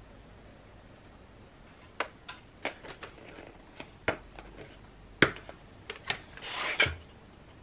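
A reed diffuser's gift box and its packaging being handled on a desk: after about two seconds of quiet, a series of light, separate knocks and clicks, then a longer rubbing slide across the tabletop about six and a half seconds in.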